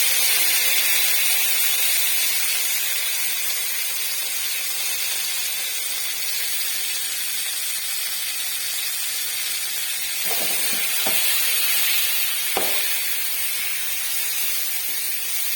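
Mosu mosu keerai greens sizzling in hot coconut oil as they start to sauté: a loud steady hiss, strongest in the first couple of seconds after they go into the oil. A few light knocks come about ten to thirteen seconds in.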